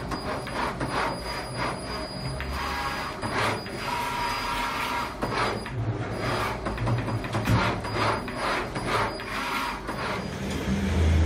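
Motors and gantry of a computer-controlled flatbed plotting and cutting table as its head travels over paper, whirring in short, irregular runs with clicks and a faint high whine. A lower, steadier hum comes in near the end.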